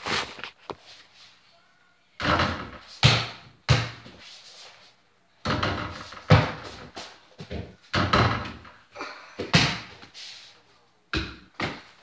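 Mini basketball thudding against an over-the-door hoop and the wooden door it hangs on: a string of sharp thuds a second or two apart.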